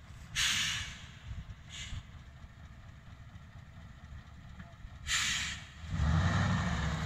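ZIL-131 truck's V8 petrol engine idling with a low, uneven rumble, broken by short hisses of air from its pneumatic brakes: one about half a second in, a smaller one near two seconds, and a stronger one at about five seconds. About six seconds in the engine rises sharply in level as the truck pulls away.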